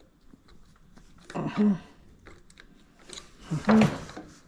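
Two short wordless vocal sounds from a man at work, one about a second and a half in and one near the end, with light clicks and taps of tools between them.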